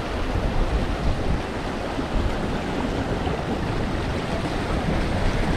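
Strong wind rushing across the microphone in a steady, rumbling wash, with surf at an ocean inlet beneath it.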